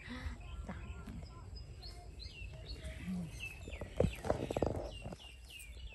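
Bird chirping: a run of short, high chirps, each falling in pitch, over a low outdoor rumble, with a single knock about four seconds in.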